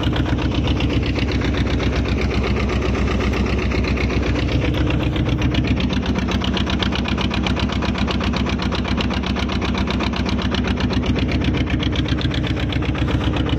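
Fishing boat's engine running steadily under way, with a fast, even knocking beat.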